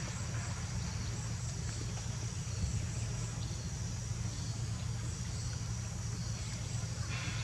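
Outdoor ambience: insects droning steadily at a high pitch over a constant low rumble.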